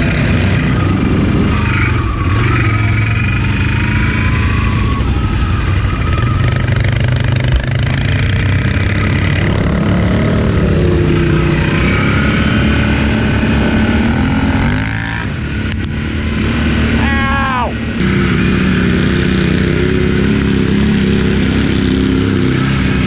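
Can-Am Renegade ATV engine running under load at riding speed, with wind and gravel noise over it. About two thirds of the way through it eases off and then revs up again, and near the end the sound changes abruptly.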